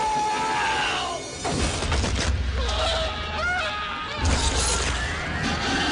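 Movie soundtrack: men screaming in long, wavering yells over a dense crashing din and low rumble, with music underneath.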